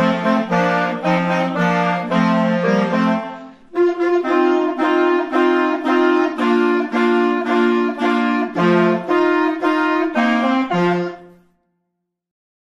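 Clarinets and saxophones playing a piece together in several parts, with a short break about three and a half seconds in. The piece ends on a final note about eleven seconds in.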